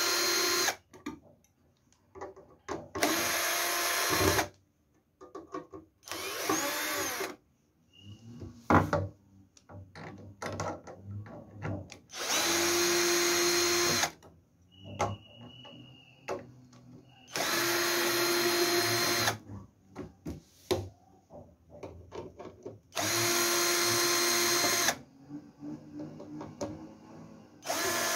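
Cordless drill-driver running in short bursts of one to two seconds, about six times, backing out the screws that hold the battery case's top cover, with small clicks of handling between runs. A single sharp knock about nine seconds in.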